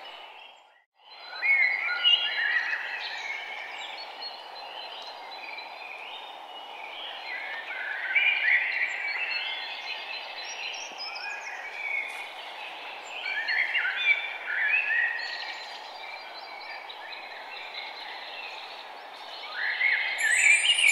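Birds chirping and singing in repeated quick phrases over a steady background hiss. The sound cuts out for about a second near the start.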